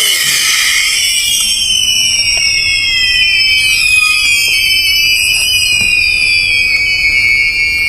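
A loud, dense chorus of many overlapping high-pitched whistling squeals, each sliding downward in pitch. It sets in abruptly and carries on without a break.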